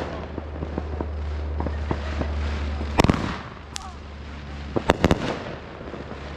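Consumer fireworks going off: one loud bang about three seconds in, then a quick cluster of three bangs nearly two seconds later, with scattered smaller pops between. A steady low hum runs underneath.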